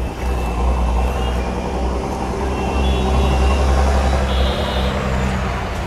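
Steady low engine hum of motor traffic on a busy city street, with street noise over it; the hum eases off about four and a half seconds in.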